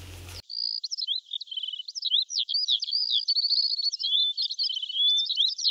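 Birdsong used as an outro sound effect: a quick, unbroken run of chirps, trills and whistles that starts suddenly about half a second in, after the outdoor sound cuts off.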